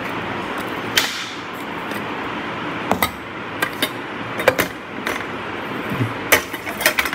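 Stainless steel tiffin lunch box being taken apart: the steel containers and wire carrier frame clink and clack sharply against each other and the table, about a dozen separate knocks that come thicker near the end, over a steady background hiss.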